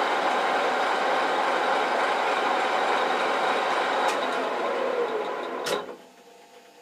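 Metal lathe running steadily in reverse at its higher gear ratio, driving the carriage back along the screw with the half-nut still engaged after a thread-cutting pass. A couple of clicks come near the end as the lathe is stopped and the running winds down to quiet.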